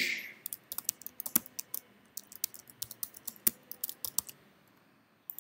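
Typing on a computer keyboard: a fast, uneven run of keystrokes for about four seconds, stopping about a second before the end, with one more click near the end.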